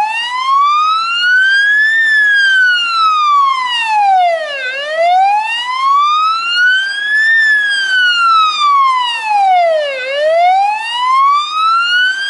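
Fire engine's electronic siren sounding the slow wail, a pitched tone that rises and falls smoothly, each climb or drop taking just under three seconds.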